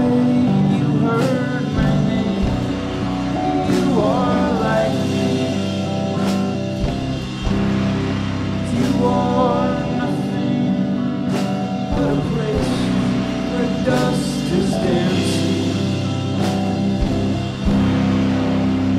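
Live rock band playing: electric guitar and drums over long held low notes, with sharp drum or cymbal strikes every second or two and a voice singing.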